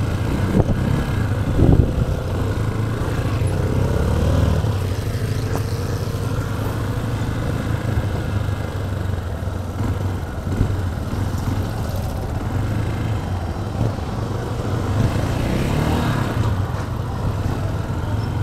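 Motorcycle engine running at low speed in traffic, its pitch rising under throttle about four seconds in and again near the end. A brief thump about two seconds in.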